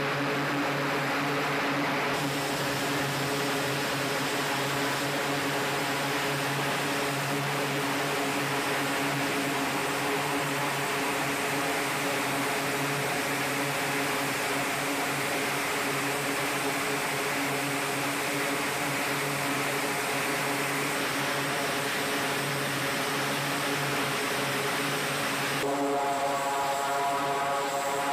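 Twin turboprop engines of an E-2 Hawkeye running with propellers turning, a steady hum with a strong low tone over a hiss. Near the end the hiss fades and a buzzier tone comes in.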